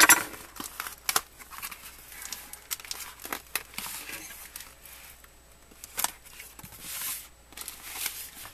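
A taped cardboard box being opened: packing tape tearing and cardboard crinkling, with scattered sharp clicks and a loud crackle at the start.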